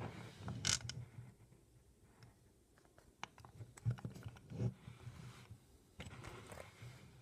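Faint handling noise: scattered light clicks and taps of fingers on a diecast metal model fire truck, mixed with low thumps.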